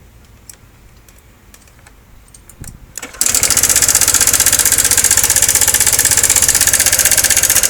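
About three seconds in, a 2013 Honda SH150i scooter's single-cylinder four-stroke engine is started and catches at once. It then runs loud for about four and a half seconds with a rapid, even knock. The mechanic calls it a knock and traces it, most likely, to a faulty cam chain tensioner.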